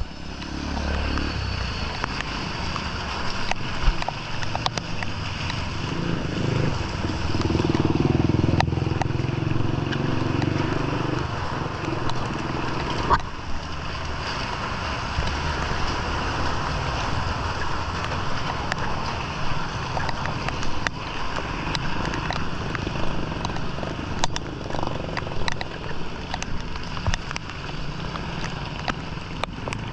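Motor traffic passing on a street over a steady hiss. A vehicle engine grows loudest and passes about six to twelve seconds in.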